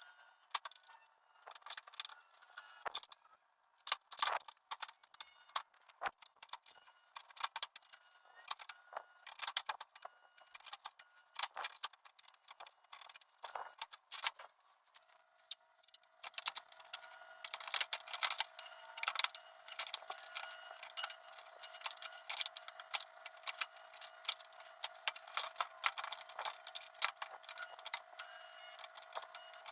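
Light metallic clicking and clinking of tools against sheet metal. Irregular in the first half; from about halfway it becomes dense and is joined by a faint steady hum.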